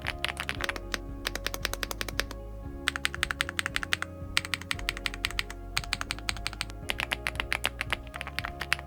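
Rapid typing on a mechanical keyboard fitted with TTC Speed Gold switches: fast runs of key clicks that break off in short pauses a few times, over background music.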